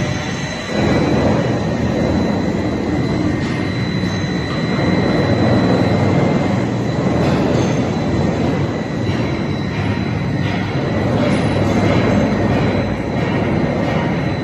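Ball mill running steadily while grinding slag: a loud, continuous grinding noise from the rotating drum, with a steady high whine running through it.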